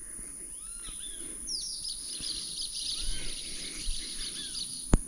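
Birds calling over the river: short arched whistled notes repeated a few times, and a fast high chattering trill from about a second and a half in until about four and a half seconds in. A single sharp click near the end.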